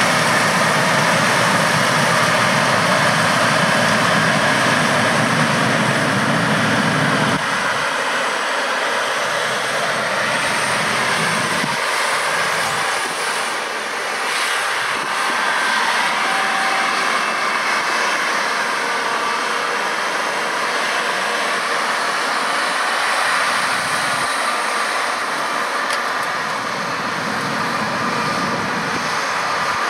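John Deere 7760 cotton picker running as it harvests, a steady machine noise; its deepest low end drops away about seven seconds in.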